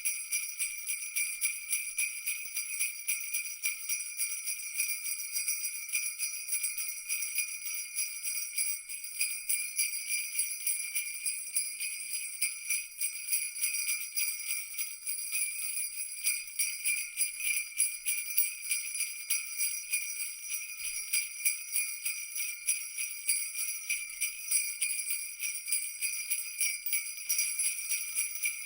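Jingle bells shaken continuously, a dense, bright, uneven jingling with no pause.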